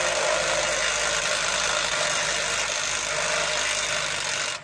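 A power tool running steadily at work on old motor-mount bolts, then stopping abruptly at the very end.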